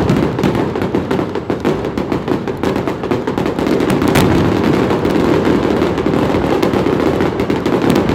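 Aerial fireworks shells going off in a rapid barrage: a dense run of bangs and crackles, with a loud bang right at the start and another about four seconds in.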